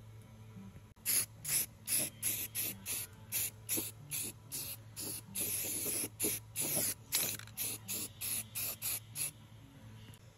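Aerosol can of rust treatment spraying in short hissing bursts, about two or three a second, with one longer spray near the middle, over a steady low hum.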